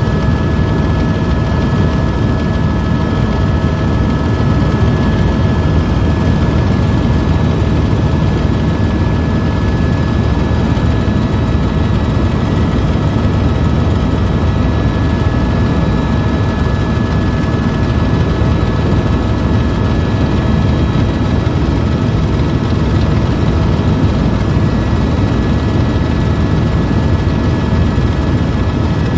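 Tour helicopter in flight, heard from inside the cabin: a loud, steady rumble of rotor and engine with several constant whining tones above it.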